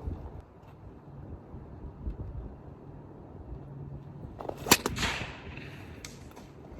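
Kevlar stone sling cracking once, about two-thirds of the way through, as a stone is let fly: a single sharp crack followed by a brief hiss.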